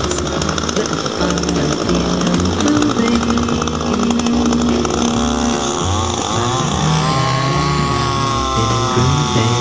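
Gasoline-powered portable rock core drill with a chainsaw-type two-stroke engine, running steadily while drilling core samples from rock for paleomagnetic study. Its pitch wavers up and down in the second half.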